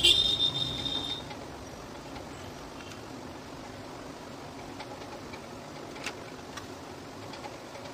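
A brief high-pitched chirp at the start, then steady low background noise with a few faint clicks from small electronic parts being handled: the circuit board of a Bluetooth speaker lifted out of its plastic case.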